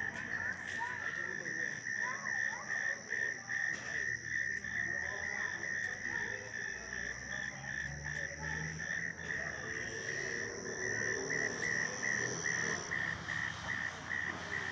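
A frog calling a short note over and over, about three times a second, with a thin steady high tone alongside that stops a little before the end.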